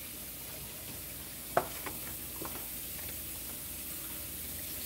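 Steady hiss from a pot of porridge heating on the stove towards a boil, with a sharp knock about a second and a half in and a couple of fainter clicks just after.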